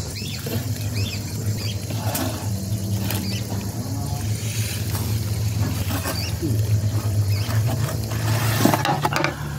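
Whole grilled chickens being slid off a long flat metal skewer onto an aluminium tray: a few knocks and scrapes, with short high squeaks, over a steady low hum.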